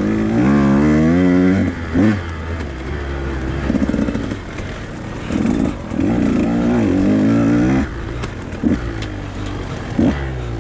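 Two-stroke enduro motorcycle engine revving up hard and backing off in repeated bursts as it is ridden over trail, with a few short sharp knocks in between.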